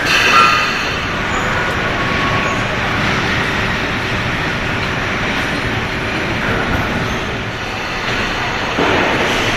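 Steady machinery noise of a car assembly line, a continuous mechanical din with a couple of short faint squeals in the first few seconds.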